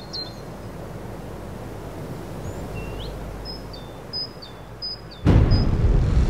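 Low steady city-alley ambience with a few small bird chirps. About five seconds in, a sudden loud hit starts.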